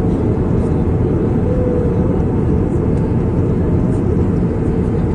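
Steady low rumble of cabin noise inside a passenger airliner.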